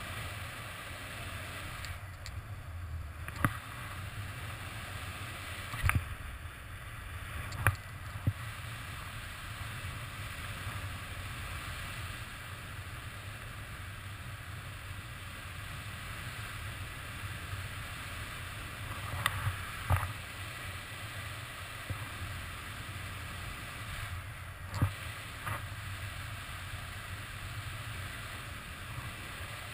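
Wind rushing over the microphone of a camera carried by a paraglider in flight: a steady noise, broken by several short, sharp knocks.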